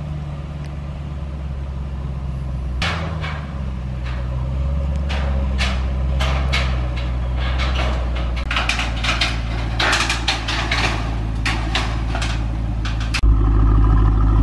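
A 2017 Chevrolet SS's 6.2-litre V8 idling as the car is driven down a car-hauler trailer's steel ramps, with a run of sharp metal clanks and rattles from the ramps starting about three seconds in. Near the end the V8 idle turns louder and closer.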